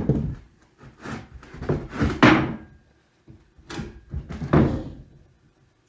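Baltic birch plywood boards knocking and thumping as they are handled and set in place on a shelf frame: a sharp knock at the start, a cluster of thumps after it, a short pause, then two more.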